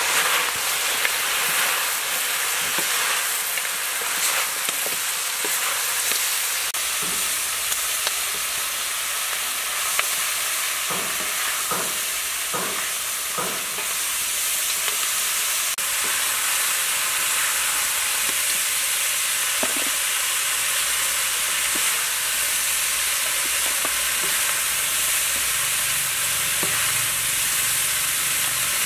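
Quail and green onions sizzling in a hot wok while a wooden spatula stirs and turns them. A few louder knocks from the stirring come about halfway through.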